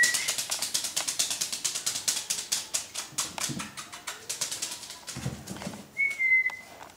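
Rapid patter of light clicks and rustles as one-month-old boxer puppies move about. About six seconds in comes a short, thin, high whine from a puppy.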